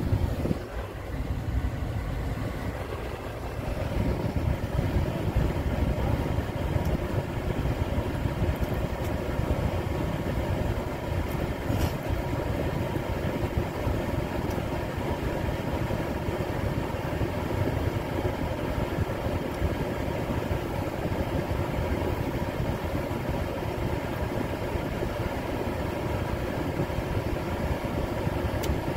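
Steady rumble of a car's engine heard from inside the cabin.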